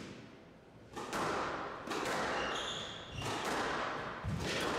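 Squash ball being served and then struck back and forth, a few sharp hits with the racket and off the walls, the first about a second in. The hits echo in the glass-walled court, with players' footsteps and a brief shoe squeak on the wooden floor.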